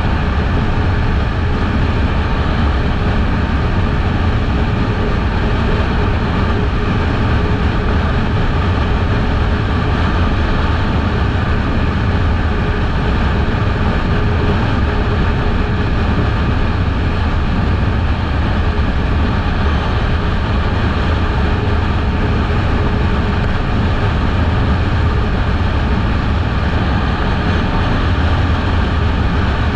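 Kawasaki Eliminator 500 parallel-twin motorcycle riding at a steady speed, its engine running evenly under a constant rush of wind and road noise, with no change in pitch.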